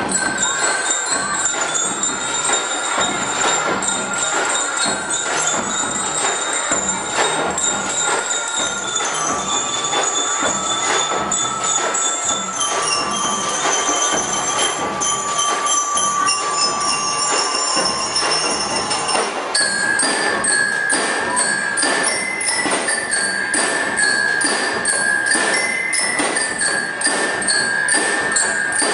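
A drum and lyre corps playing: metal bell lyres carry the melody in clear ringing notes over a steady, dense drum beat. About twenty seconds in, the lyres change to a quicker, repeated figure.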